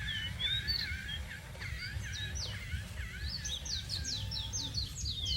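Songbirds chirping and calling, many short rising and falling notes that quicken into a rapid run of descending chirps about three and a half seconds in, over a steady low rumble.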